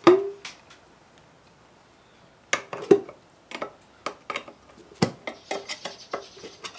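A metal quart paint can being pried open: sharp metallic clinks and knocks, with a loud ringing clank at the start and another about three seconds in, then a run of quick clicks and scraping near the end.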